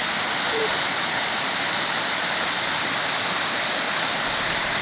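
Waterfall rushing: a steady, even roar of falling water with no breaks.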